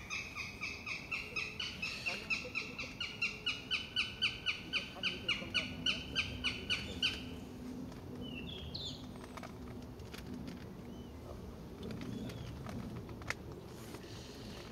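Northern goshawk calling a rapid run of sharp repeated notes, about three a second for some seven seconds, growing louder as it goes and then stopping. A small bird chirps briefly once about two seconds later.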